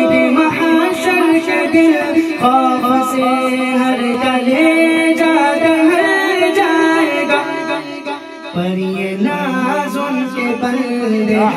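A man singing an Urdu naat unaccompanied into a microphone, drawing out long held notes with wavering melismatic ornaments. He drops to a lower note about eight and a half seconds in.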